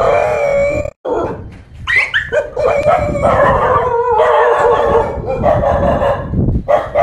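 A dog howling and whining in long wavering cries, with a few sharp high yelps about two seconds in.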